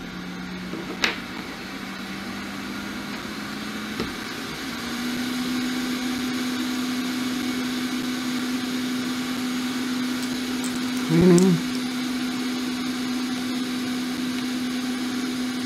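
Hot air rework station blowing steadily while it heats a laptop's USB-C charging port to desolder it. Its fan hum steps up to a higher pitch just after a click about four seconds in.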